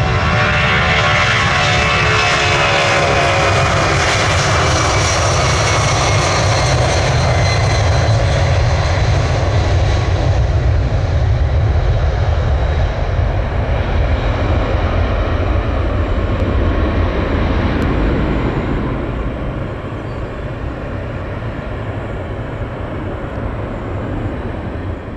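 Jet airliner's engines passing close by: a whine that slides down in pitch over the first several seconds, over a heavy rumble that eases off after about eighteen seconds.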